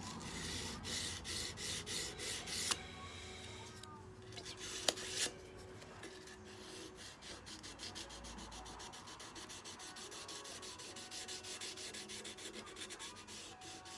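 Hand sanding a forged steel knife: rhythmic back-and-forth rubbing strokes, about two a second at first, with a couple of short knocks a few seconds in, then lighter, quicker strokes.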